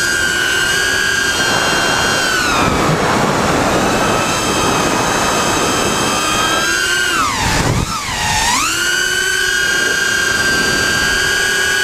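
Brushless motors of a 5-inch racing quadcopter (Lumenier 2206 2350kv) giving a high whine. The pitch slides down about two and a half seconds in, then dips sharply and swoops back up about eight seconds in as the throttle is chopped and punched again.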